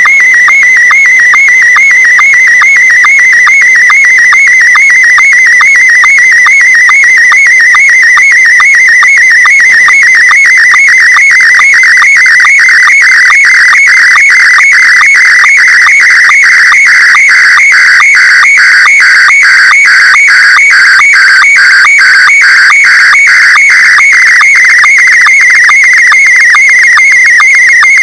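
Slow-scan television (SSTV) picture signal received over shortwave in single sideband: a loud, continuous warbling electronic tone that shifts in pitch as it carries the image, broken by a short sync pulse several times a second, one for each scan line of the picture.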